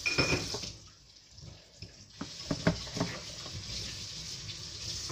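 Kitchen spice containers and a spoon being handled while seasoning fish: a rustle and clatter at the start, then a few light clicks and knocks about two to three seconds in, over a steady hiss.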